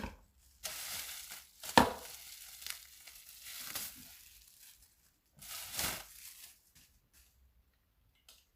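Plastic packaging crinkling and rustling in several bursts as a sealed wrapper is handled, with one sharp click just under two seconds in.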